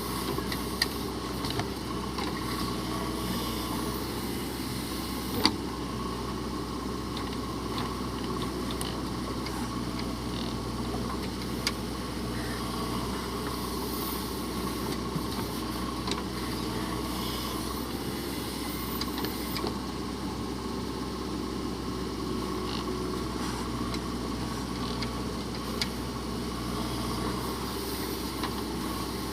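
JCB 3DX backhoe loader's diesel engine running steadily, with a few short sharp knocks, the loudest about five and a half seconds in.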